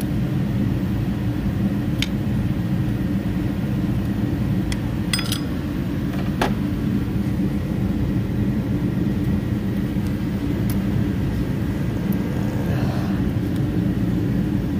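A steady low mechanical rumble, with a few light, sharp metal clicks scattered through it as a screwdriver pries a stuck metal water-pump gasket off the engine.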